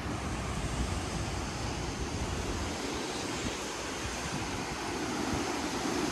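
Category 4 hurricane wind rushing steadily through trees. Gusts buffet the microphone with a low rumble during the first few seconds, then ease off.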